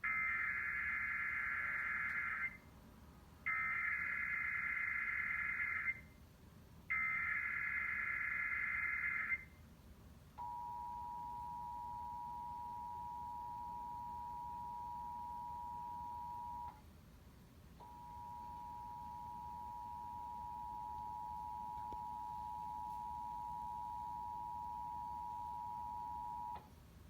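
Emergency Alert System tones of a required monthly test on broadcast TV. First come three bursts of the warbling SAME digital header, each about two and a half seconds long. Then the steady two-tone EAS attention signal (853 and 960 Hz) sounds, with a break of about a second partway through.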